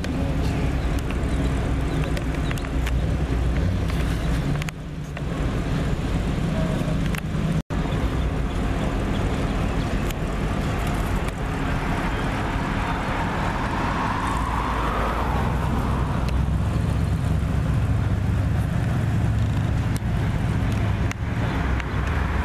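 Vehicles driving along a street with a steady low engine rumble: first an SUV pulling a trailer loaded with an old truck, then a fourth-generation Chevrolet Corvette with its V8 cruising by. The sound cuts out for an instant about eight seconds in.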